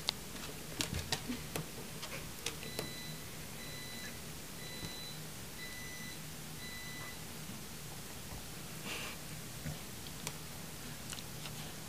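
An electronic beeper sounding about five short, evenly spaced beeps, under a second apart, over a low steady hum. There are a few sharp clicks in the first seconds and a brief hiss-like noise about nine seconds in.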